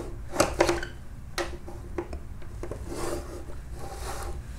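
Chalk scraping on a chalkboard as lines are drawn along a long wooden straightedge: a few light knocks of chalk and ruler in the first two seconds, then a longer scratchy chalk stroke about three seconds in.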